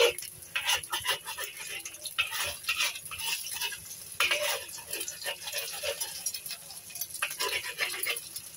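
A metal spatula scraping and knocking against a wok as frying eggs are pushed and broken up, in irregular quick strokes over the sizzle of hot oil.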